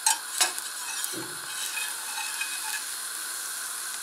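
A slice of rye bread frying in oil in a pan, sizzling steadily, with two sharp clicks of a metal spatula against the pan near the start.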